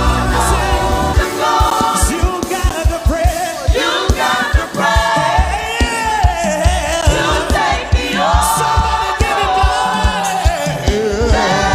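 Gospel music: singers with choir voices over a band, with a steady beat of low drum hits.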